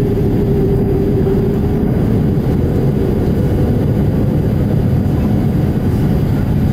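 Boeing 787-8's Rolls-Royce Trent 1000 turbofans in the climb after takeoff, heard from inside the cabin: a loud, steady rumble with a humming tone that fades about a second in.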